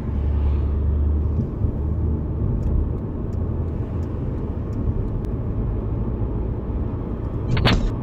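Steady low road and engine rumble heard from inside a car driving at highway speed. A short, sudden loud noise near the end comes as a car ahead crashes and slews sideways across the lanes.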